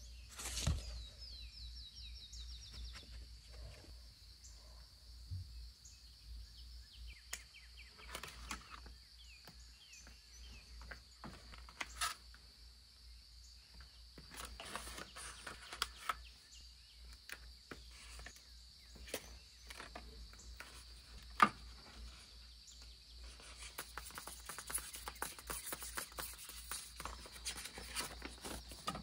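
Quiet paper handling: soft rustling of paper sticker sheets, with scattered light taps and clicks of tweezers picking up and pressing down paper stickers. Denser paper rustling near the end as binder pages are turned.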